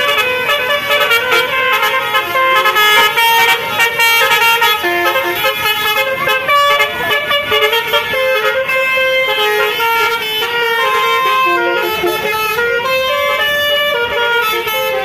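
Basuri multi-tone musical air horn on a bus playing a telolet tune: a quick run of held notes stepping up and down in pitch without a break.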